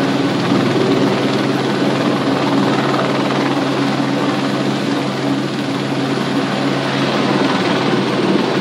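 Helicopter's engine and rotor running as it settles onto the pad after landing: a steady drone with several steady low tones, easing slightly near the end.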